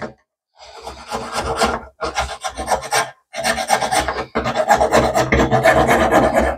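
Needle file rasping back and forth in a band groove of a slingshot frame, worked wet. Three bouts of quick strokes with short pauses between.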